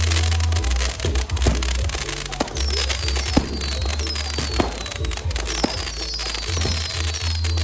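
Fireworks going off in scattered sharp bangs over loud music with heavy bass. From about two and a half seconds in, short high falling whistles repeat every second or so.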